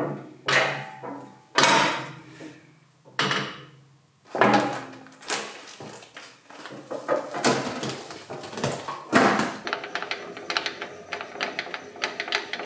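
Metal clanks and knocks from a combination jointer-planer being converted from jointing to planing: jointer tables and fence moved and the dust hood and hose fitted, a loud knock about every second or so. In the last few seconds comes a fast run of light clicks while the planer table's height handwheel is worked.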